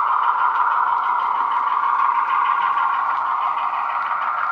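DCC sound decoder in a model Class 35 Hymek diesel-hydraulic locomotive, playing its diesel engine sound through a small tablet-type bass-enhanced speaker: a steady running note with a faint quick pulsing and little deep bass.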